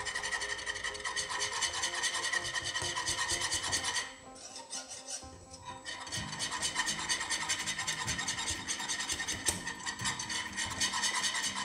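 Béchamel sauce being stirred briskly in a pan as it cooks and thickens, the utensil rasping against the pan's bottom in quick, rapid strokes. The stirring eases off for about two seconds, about four seconds in.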